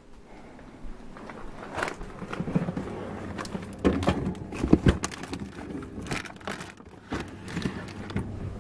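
Handling noise of frozen food packaging and plastic bins being moved around in a freezer: irregular rustling and crinkling with light knocks, and a few louder thumps about four to five seconds in.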